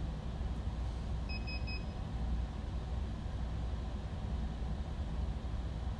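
Three quick, short, high beeps about a second in from an RC radio transmitter being switched on, over a steady low hum in the room.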